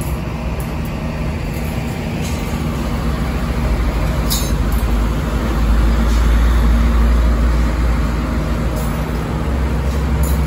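Komatsu PC200 excavator's diesel engine running steadily, growing louder in the middle, with a few scattered knocks.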